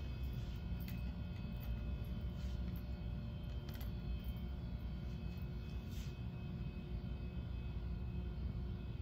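Steady low rumble and hum of a large room's air handling, with faint steady whining tones above it and a few soft clicks.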